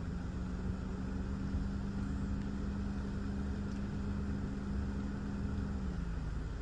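Thunderstorm wind and rain noise with a low rumble, plus a steady motor-like hum that fades out near the end.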